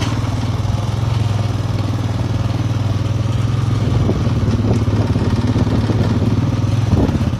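Farm motorbike engine running steadily at low speed close by, stopping near the end.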